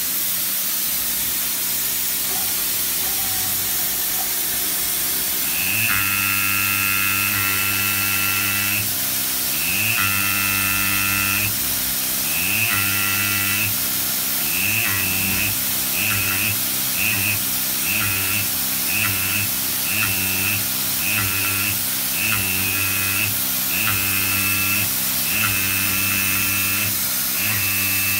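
AKS Teknik PMT20A pneumatic marking chuck on a CNC lathe buzzing as its stylus scribes lettering into a metal face. The buzzing begins about five seconds in and comes in separate runs, several long ones and then shorter ones about a second apart, with each run starting on a short rising whine. A steady hiss runs underneath.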